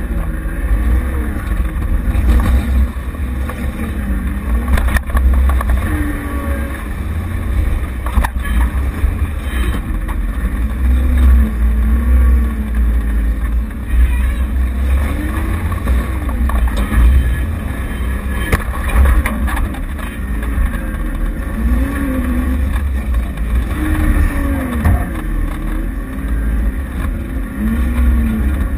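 Off-road vehicle's engine heard from its bonnet, over a heavy low rumble, its revs repeatedly rising and falling as it works along a rough bush track. Scattered knocks and bangs come through from the vehicle jolting over rocks.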